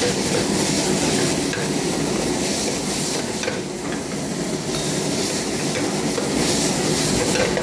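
Chopped tomatoes and onions sizzling as they fry in oil in a pan over a high gas flame, with a metal ladle stirring and scraping through them, over a steady rushing noise.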